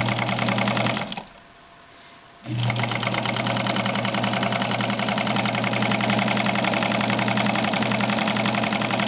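Necchi BU Nova belt-driven sewing machine running at speed, its motor humming under a fast, even ticking from the mechanism. A short run stops about a second in, and after a brief pause the machine starts again and runs steadily.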